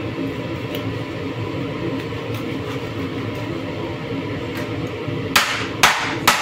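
A large kitchen knife chopping into a large fish on a plastic cutting board: three sharp strikes about a second apart near the end, over a steady background sound.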